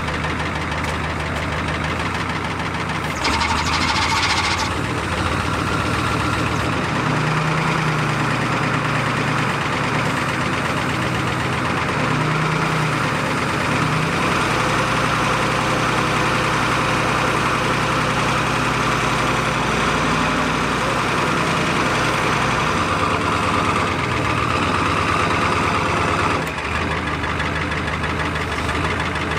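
A 7.3-litre turbo IDI diesel V8 in a '94 Ford F-350 tow truck idling with diesel clatter. The engine speed rises briefly twice, and there is a short hiss about three seconds in.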